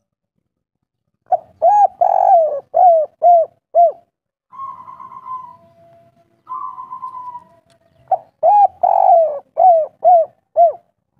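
Spotted dove cooing two phrases of the 'kuk 3' type: a couple of short notes, one long drawn coo, then three short closing 'kuk' notes. A quieter, rough sound fills the pause between the two phrases.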